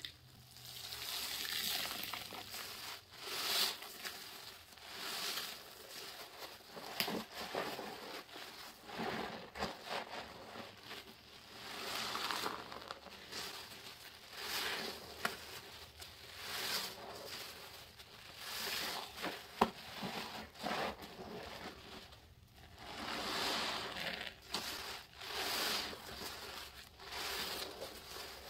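Soapy sponges squeezed and squished by gloved hands in a steel bowl of sudsy dish-soap water. The wet squelching and crackling of foam come in repeated swells, about one every one to two seconds.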